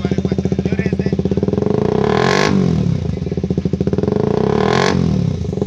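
KTM RC 125's single-cylinder four-stroke engine idling loudly through a freshly fitted SC Project aftermarket exhaust. The throttle is blipped twice, about two seconds in and again near the end, each rev rising and dropping back to idle.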